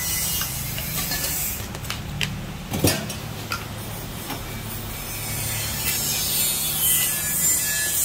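Spoons and a ladle scraping and clinking against clay mortars and a metal pot as som tam dressing is spooned out, with one sharper knock about three seconds in, over a steady low hum and hiss.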